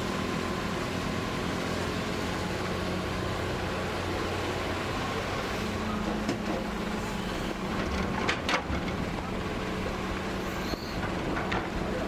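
Hitachi hydraulic excavator's diesel engine running steadily under load while it swings a full bucket of soil over a dump truck, with several knocks and rattles of soil and rock in the second half.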